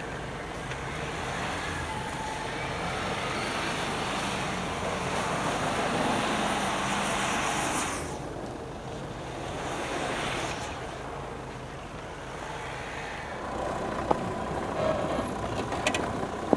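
Jeep 4x4s driving off-road through snow: engines running under load with tyre and snow noise, growing louder over the first half. About halfway the sound drops away suddenly. It comes back steadier, with a few sharp clicks near the end.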